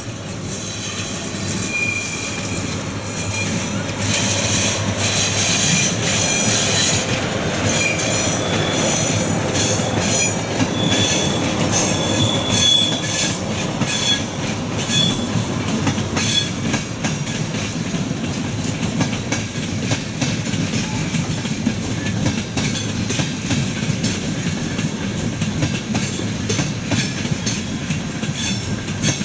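Train moving through a railway station: a steady rumble, growing louder over the first few seconds, with thin high wheel squeals that come and go and many short clicks of wheels over rail joints.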